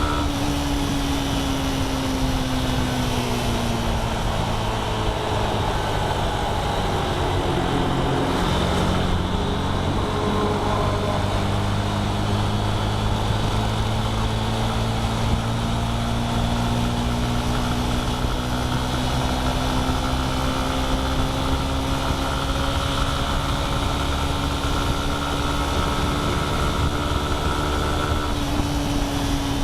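A vehicle's engine running at highway speed under steady road and wind noise. Its pitch falls over the first few seconds, dips about eight seconds in, then climbs slowly for most of the rest before easing off near the end.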